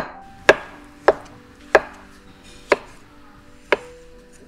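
Chef's knife dicing avocado on a wooden cutting board: six sharp knocks of the blade striking the board, spaced about half a second to a second apart.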